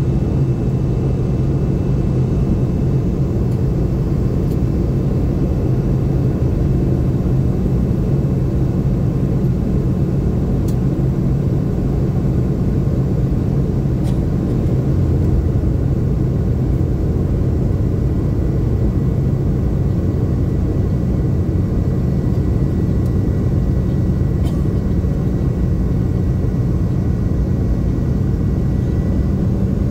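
Cabin noise inside a Boeing 717 in flight: a steady drone from its rear-mounted Rolls-Royce BR715 turbofans and the rush of air, dominated by a low hum, with a faint high whine in the background.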